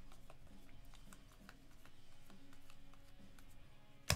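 Faint ticks and slides of 2022 Topps Series 1 baseball cards being thumbed one by one through a pack, with a sharp click near the end.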